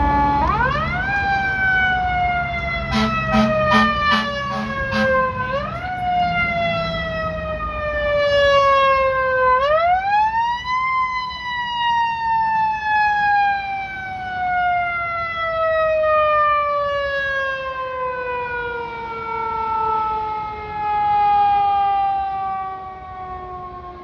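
Fire engine siren winding up three times, each rise followed by a slow falling wail; the last wind-down runs for over ten seconds. About three seconds in, a quick run of short air horn blasts sounds over the siren.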